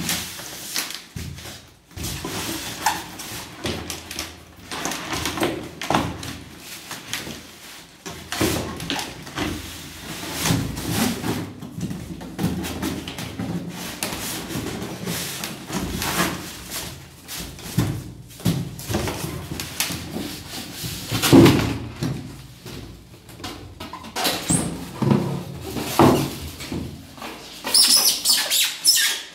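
Cardboard box, foam packing blocks and plastic wrapping scraping and rustling as an air-conditioner indoor unit is worked out of its box by hand, in irregular bursts with the loudest scrape about two-thirds of the way through. Near the end comes a spell of crinkly plastic rustling as the wrapped unit is set down.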